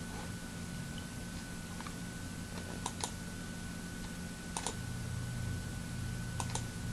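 Faint, scattered clicks of someone working a computer, a few in quick pairs, over a steady low hum and a thin high whine.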